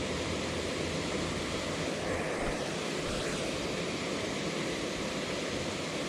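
Steady rushing of water pouring through a small pond dam spillway.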